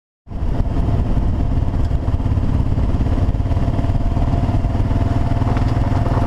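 Kawasaki KLR650's single-cylinder engine running at a steady speed under way on a gravel road. It cuts in suddenly a moment in, after silence.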